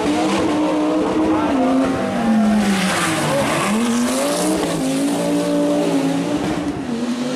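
Rally car engine revving hard, its pitch climbing and dropping repeatedly as the driver works the throttle and gears, with a stretch of tyre noise about three seconds in.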